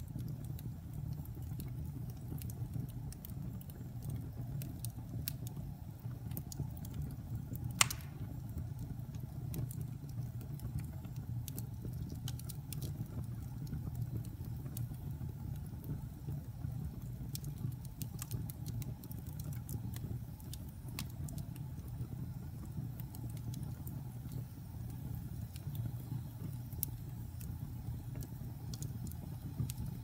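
Wood fire burning in a fireplace, crackling with scattered small pops over a steady low rumble, and one sharp, much louder pop about eight seconds in.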